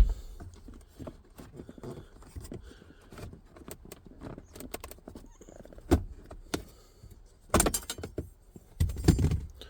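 Hands working a cover plate and trim loose around a Nissan 350Z's shifter: scattered clicks, knocks and rattling of plastic and metal parts, with a sharp knock at the start, another about six seconds in, and bursts of clatter near the end.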